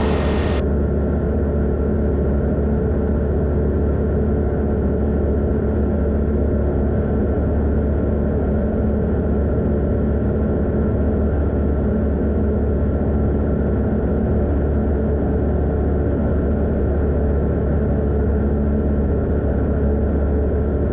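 Van's RV-12iS light aircraft's Rotax 912 iS engine and propeller running steadily in level cruise, an even, unchanging drone.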